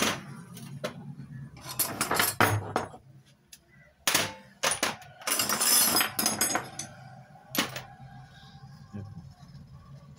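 Steel spanners and sockets clinking and clattering as they are handled and set down on a wooden bench, in several quick clusters of sharp clinks, dying down over the last couple of seconds.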